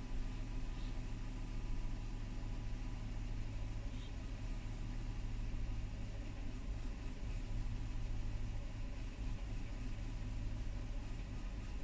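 Lexus LX470's 4.7-litre V8 idling steadily with a low hum, the rough idle that the owner is working to cure.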